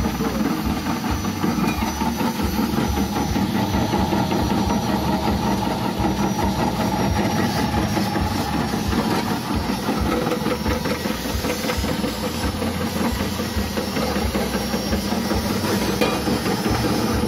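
Electric chip-slicing machine running: its 180-watt motor spins the blade disc under the stainless body with a steady hum and a fast, dense clatter as pieces fed down the feed tubes are cut into thin slices.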